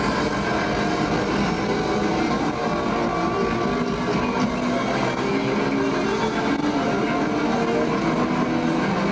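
Live rock band playing at full volume: keyboards, electric guitar and drums in a dense, continuous wall of sound.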